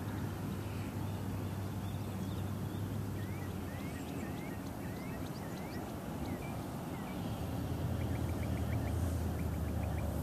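Wind buffeting the microphone, a steady low rumble that swells near the end, with a small bird chirping a string of short calls and then two quick trills of rapid ticks.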